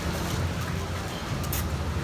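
Busy street-market ambience: a steady low rumble with faint background voices, and a short sharp clatter about one and a half seconds in.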